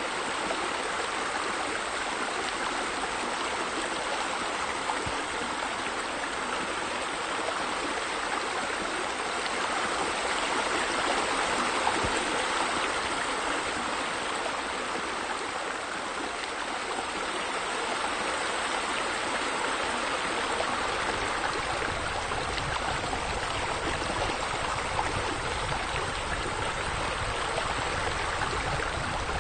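Water falling and splashing steadily from a pool water feature, an even rushing sound.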